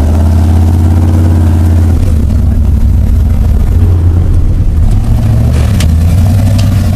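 Engine of a lifted Dodge pickup with a big cam running, a steady deep rumble. An engine note stands out in the first two seconds, and there are a few sharp clicks near the end.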